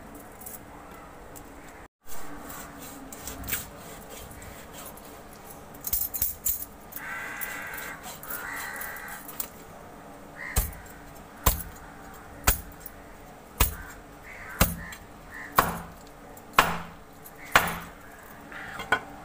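A curved-blade knife chopping through a large whole fish onto a wooden board, cutting it into steaks. The strokes come steadily, about one a second, in the second half. Two harsh drawn-out calls are heard about seven and eight seconds in.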